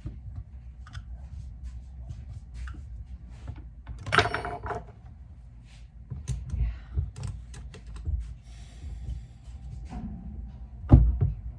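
Scattered clicks and knocks of a bolt-action rifle's parts and tools being handled during disassembly, with a louder clatter about four seconds in and a heavy thump near the end.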